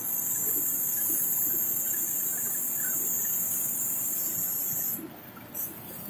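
A steady, high-pitched hiss that cuts off suddenly about five seconds in, over a faint low rumble.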